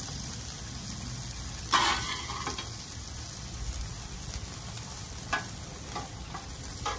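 Brisket and green beans sizzling steadily on a Blackstone steel flat-top griddle, with a brief louder burst about two seconds in. A few light clicks near the end come from a metal utensil as the beans are spread about.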